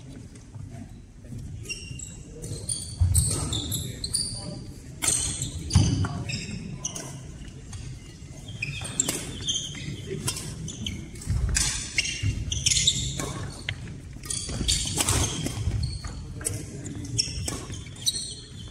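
Badminton doubles rally in a reverberant sports hall: sharp racket strikes on the shuttlecock, court shoes squeaking and feet thudding on the sports floor, with indistinct voices.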